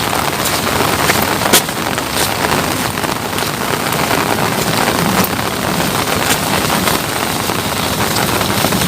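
Steady rain falling, with many single drops ticking sharply close to the microphone.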